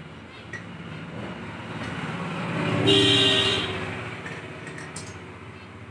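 A motor vehicle passing by, swelling to its loudest about three seconds in and then fading away.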